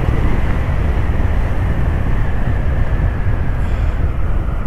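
Rushing wind noise on the mic of a moving motorcycle, with the Honda CB350 H'ness's single-cylinder engine running underneath. A faint whine slowly falls in pitch.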